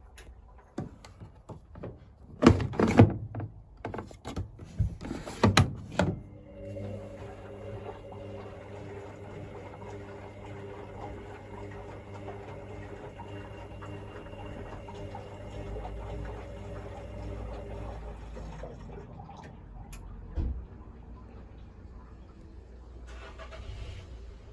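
Hoover DYNS7144D1X washing machine starting a wash: a run of clicks and a few loud knocks over the first six seconds, then a steady machine hum with several held tones that dies away around nineteen seconds, followed by a single thump and a brief hiss near the end.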